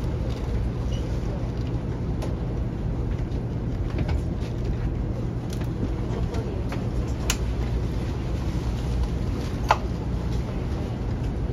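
Steady low rumble of a Taiwan High Speed Rail train's passenger cabin while the train runs. A few faint clicks sound through it, the sharpest near the end.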